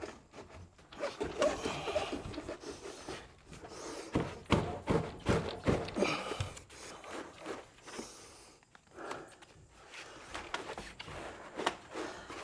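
Taped bundle of copper refrigerant line sets and condensate tube being worked down into conduit: irregular scraping, rustling and knocks against the wooden framing, busiest in the middle and easing off for a moment near two-thirds of the way through.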